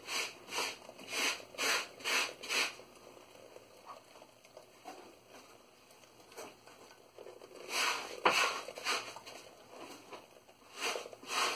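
Rhythmic rubbing strokes, about two a second, in runs that stop for a few seconds midway and then resume.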